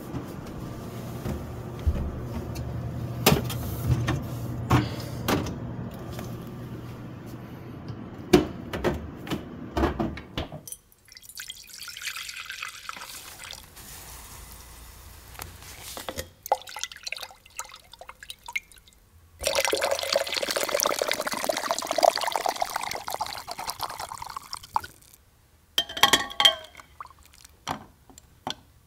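Liquid poured into a glass beaker, the pitch of the filling rising as the beaker fills, ending with a few clinks. Before it, a low steady hum with scattered clicks and knocks.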